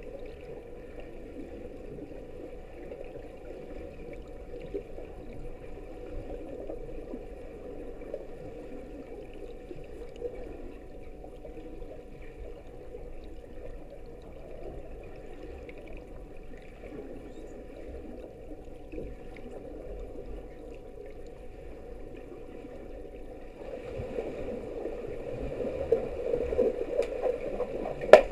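Steady muffled underwater noise heard from a camera lying on a swimming pool's floor. From about four seconds before the end it grows louder, with sharp clicks and knocks as underwater hockey players dive toward the puck, the loudest a single sharp knock near the end.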